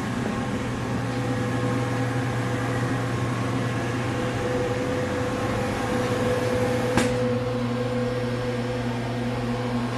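Steady hum of a powered-up Haas Mini Mill CNC machine standing idle, a few even tones held over a fan-like drone, with one sharp click about seven seconds in.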